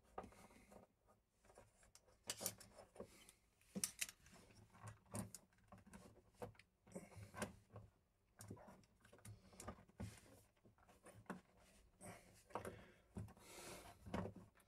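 Faint, scattered clicks and scrapes of a wall socket's metal mounting frame being handled and worked loose from its flush-mounted box, its fixing screws just being taken out.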